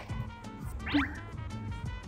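Upbeat background music with a steady beat. About a second in comes one quick falling whistle sound effect that ends in a short low blip, louder than the music.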